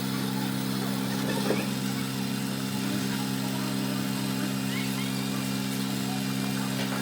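A steady, unchanging engine-like hum, like a motor idling.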